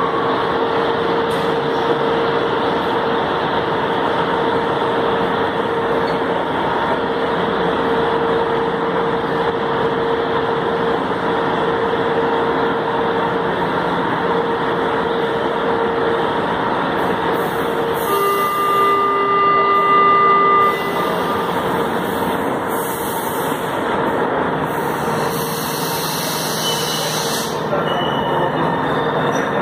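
A São Paulo Metro train stands at an underground platform, its equipment running with a steady hum and a continuous tone. About eighteen seconds in, a warning tone sounds for two or three seconds, with bursts of hiss, as the doors close before departure.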